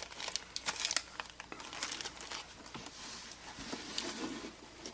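Packaging being handled: irregular crinkling and rustling with small clicks, a little busier about two seconds in and again about four seconds in.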